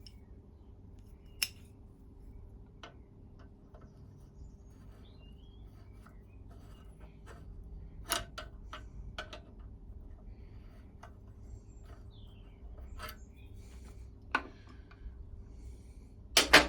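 Scattered sharp metallic clicks and taps a few seconds apart as small brass fittings of a Mamod SE1 toy steam engine are handled and unscrewed, with the loudest pair near the end.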